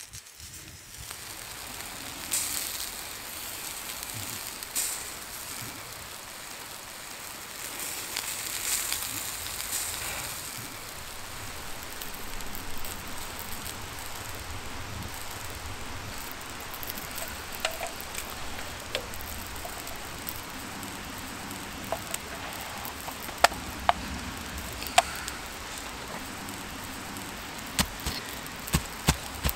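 Small wood campfire burning: a steady hiss with occasional sharp crackles and pops, several of them close together near the end.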